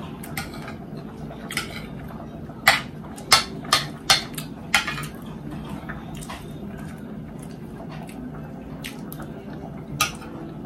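Metal fork clinking and scraping against a china plate, sharp clinks that come in a quick run about three to five seconds in and once more near the end.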